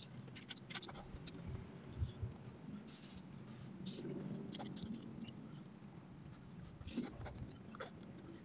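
A person slurping and chewing instant noodles close to the microphone, with wet, crackly slurps in short clusters near the start, about three seconds in, and again around seven seconds in.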